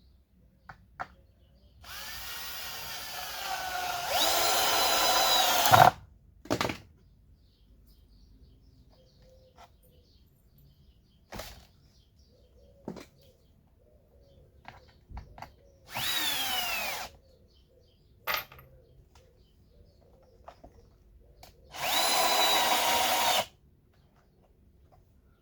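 Electric drill running in three short runs, each started and stopped by the trigger. The first is the longest, about four seconds, and gets louder and faster partway through. The second is brief, with the motor's pitch falling, and the third lasts about a second and a half.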